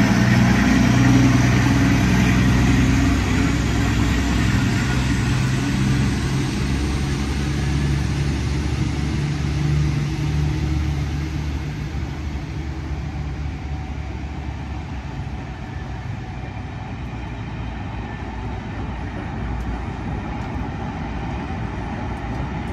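Class 52 'Western' diesel-hydraulic locomotive D1015 Western Champion, with its twin Maybach diesel engines, working as it pulls away from the station. The engine note is loud at first and fades after about ten seconds as the locomotive moves off. A lower, steady rumble of passenger coaches rolling past is left.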